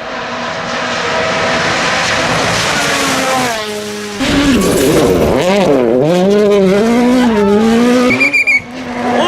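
Rally car engine at full throttle, heard onboard, revs climbing steadily. About four seconds in it falls away on a lift or gear change, then comes back louder with the revs swinging up and down through a run of corners. A short drop comes near the end.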